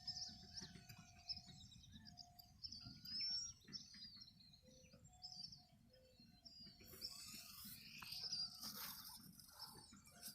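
Faint bird chirps, short and scattered, over a faint steady tone.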